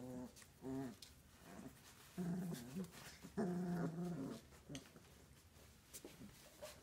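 Old English Sheepdog puppies making short growls, in several bouts of under a second each.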